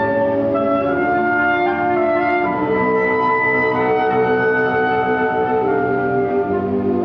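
Symphonic band of woodwinds and brass playing sustained chords in a clarinet concertino, the harmony changing about two and a half seconds in.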